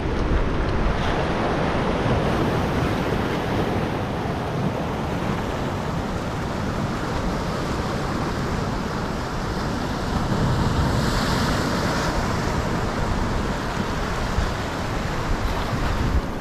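Sea surf washing over coastal rocks, a steady rush of breaking waves that swells louder for a couple of seconds about ten seconds in.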